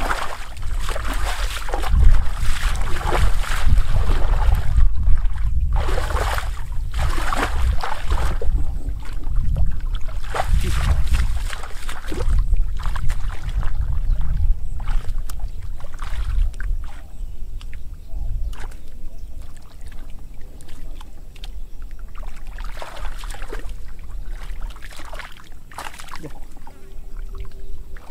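Shallow muddy water sloshing and splashing in irregular surges as a man wades through it and gropes in the mud with his hands for fish, over a heavy low wind rumble on the microphone.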